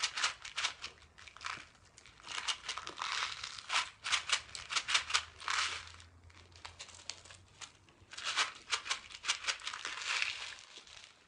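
A candy packet's wrapper crinkling as it is handled and opened, in four spells of dense crackling with short pauses between.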